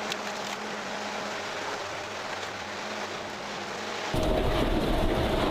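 Industrial shredding machinery running as a dense, even hiss. About four seconds in, the sound cuts abruptly to a louder, deeper machine with a steady mid-pitched hum.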